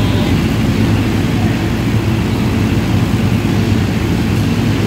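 Racing kart engines idling together as a steady, loud, low drone with no distinct revs.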